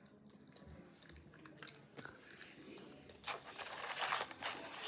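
Someone biting into and chewing crunchy fast food close to the microphone. The crackly crunching grows louder and denser about three seconds in.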